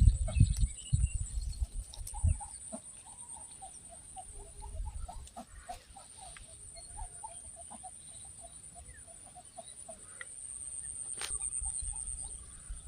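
A bird clucking in a quick run of short calls, about four or five a second, with a steady high-pitched whine throughout and a few low thumps at the start.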